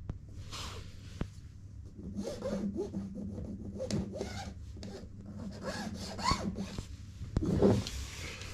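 Irregular scraping and rubbing strokes, with a few sharp knocks in between.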